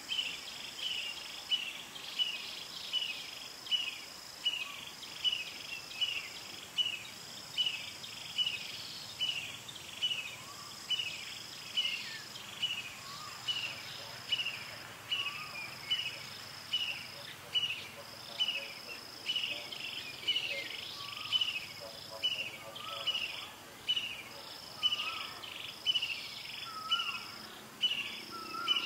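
Insect chorus: a shrill trill that comes in stretches of about a second, over a short high chirp repeating steadily about one and a half times a second.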